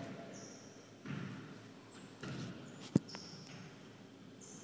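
Basketball thudding on a hardwood gym floor a few times, the sharpest and loudest bounce about three seconds in, with short high squeaks of sneakers on the court in between.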